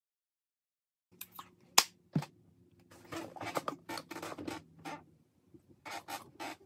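Close-up scratchy handling noises from hair being worked by hand and brush: a sharp click about two seconds in, then a run of short rustling scrapes.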